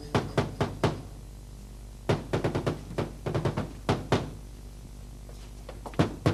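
Repeated knocking on a wooden front door, coming in several quick bursts of a few knocks each.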